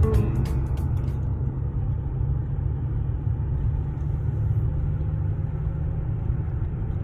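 Steady low rumble of a car driving along a paved road, heard from inside the cabin: engine and tyre noise with no changes in speed. Guitar music fades out about a second in.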